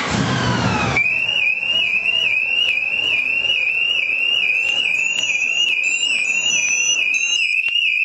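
Scorpio SR-i900 motorcycle alarm siren sounding, set off by an attempt to start the armed bike. It opens with a brief falling sweep, then settles into a rapid warble that repeats several times a second; it is loud.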